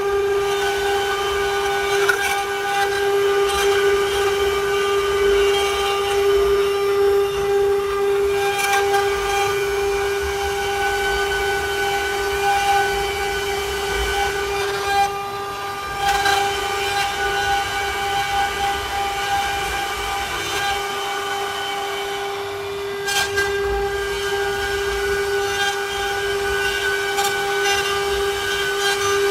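CNC wood-carving router's spindle running with a steady high whine, with light irregular ticks of the cutter working the wood.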